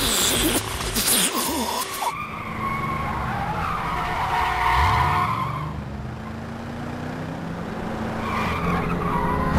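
A short breathy hiss, then a stretch limousine's tyres squealing as it takes a corner fast, with its engine revving briefly; a second shorter squeal comes near the end.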